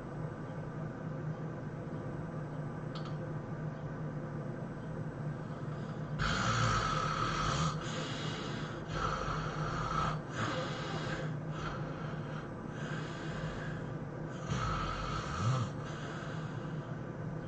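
A sleeper snoring: a run of about six loud snores, each about a second long, starting some six seconds in, over a steady low hum.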